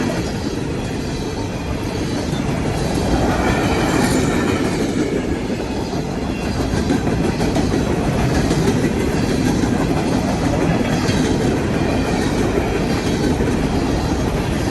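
Norfolk Southern coal train's cars rolling past, a steady rumble of steel wheels on the rails with faint scattered clicks.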